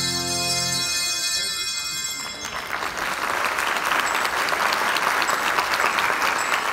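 The final held chord of a children's handbell piece and its accompaniment ends about two seconds in, and the audience breaks into applause.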